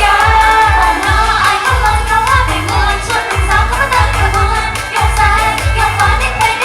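Thai idol-pop song: female singing over a steady, heavy bass-drum beat.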